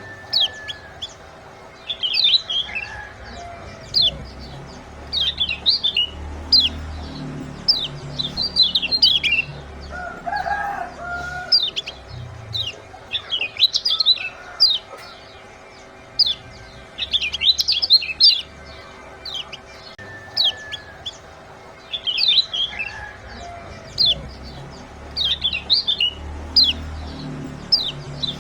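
Kecial kuning (white-eye) calling: clusters of short, sharp, high 'ciak' chirps in quick runs, from a looped lure recording played to get lazy cage birds singing. A lower call sounds about ten seconds in, over a steady low hum.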